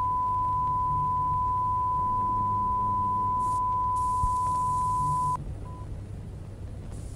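Steady 1 kHz broadcast test tone, the kind played with colour bars. It cuts off abruptly about five seconds in and gives one short blip just after, over a low hum.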